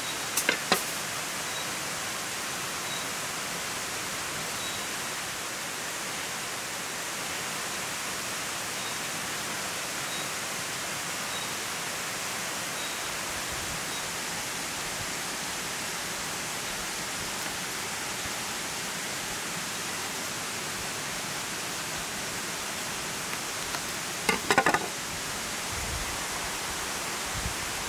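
Steady rush of flowing water. It is broken by a few crisp clicks just after the start and a cluster of sharp knocks about 24 seconds in, from a knife cutting zucchini and pieces being pushed onto a wooden skewer.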